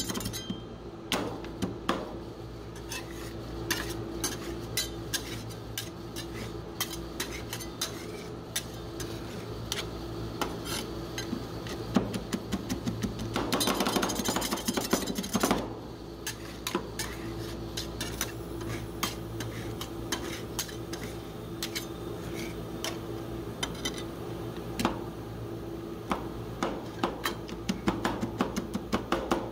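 Two metal spatulas chopping and scraping chocolate pieces into an ice cream base on a stainless-steel cold plate: rapid clicking taps and metal-on-metal scrapes, with a spell of faster, louder continuous chopping about halfway through. A steady low hum runs underneath.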